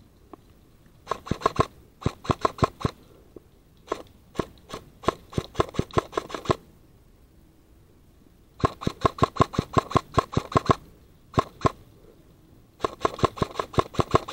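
Airsoft gun firing full-auto: about six bursts of rapid, evenly spaced sharp clicks, roughly ten a second, the longest lasting two to three seconds.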